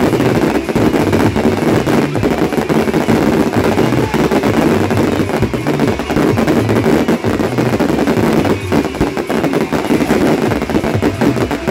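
A professional fireworks display firing many pieces at once: a rapid, near-continuous barrage of bangs and crackle that never lets up.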